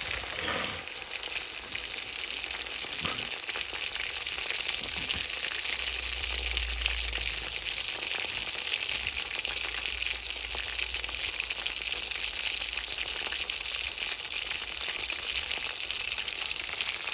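Marinated prawns deep-frying in hot oil, a steady sizzling crackle as they crisp to golden.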